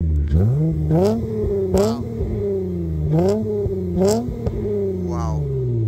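8th-generation Honda Accord coupe's 3.5-litre V6 revved through its exhaust in several quick throttle blips. Each rev climbs sharply and drops back toward idle.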